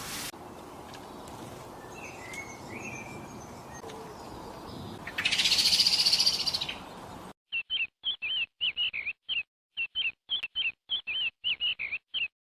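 Bird calls: faint chirps over an outdoor background, then a loud, high, buzzy trill lasting about a second and a half. After a sudden cut comes a run of short repeated chirps, about three a second.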